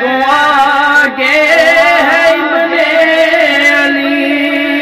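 A man singing an Urdu naat without words, drawing out a long melismatic vowel: the pitch wavers and turns for about the first second and a half, then settles into one long held note.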